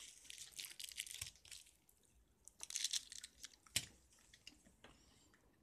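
Faint crackling and crunching in a few short bouts, with one sharp click just before four seconds in: a toddler handling and eating a chocolate treat.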